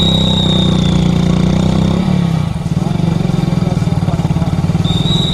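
A motorcycle engine running steadily at low speed with a rapid, even pulse. A thin high tone sounds for about the first second and again near the end.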